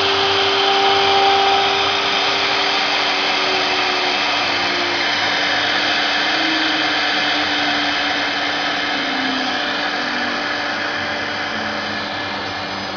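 CNC wood router at work, its spindle running together with the dust collector and the water-ring vacuum pump that holds the panel down: a steady, dense whirring with a low hum that sinks a little in pitch, easing slowly in level.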